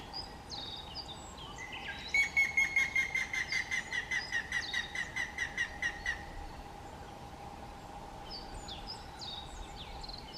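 Grey-headed woodpecker singing: a series of about twenty whistled notes, about five a second, dropping slightly in pitch and fading, lasting about four seconds. Faint high chirps of other small birds come before and after it.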